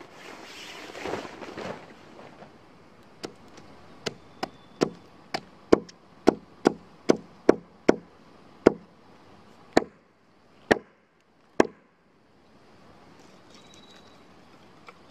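Hatchet chopping and splitting dry sticks against a fallen pine log: about fifteen sharp chops, roughly two a second, spacing out near the end. Before the chopping, a tarp rustles as it is shaken out.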